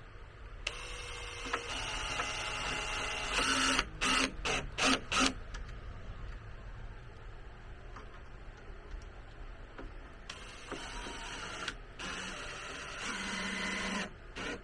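Power drill driving screws into wood: a motor run of about three seconds, then four short trigger bursts, then a quiet stretch and another run of a few seconds near the end.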